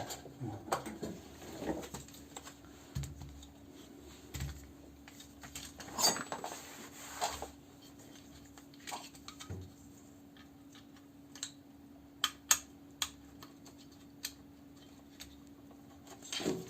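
Scattered light clicks, taps and rattles of hand work on a washing machine's motor wiring and cable ties, with a denser rattle about six seconds in. A faint steady hum runs underneath from a couple of seconds in.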